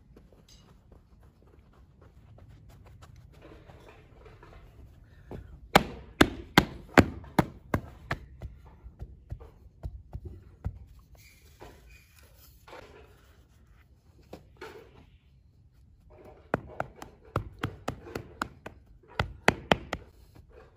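Moulding sand being rammed into a steel casting flask for a sand-cast frying pan: runs of sharp knocks, two or three a second, with pauses between.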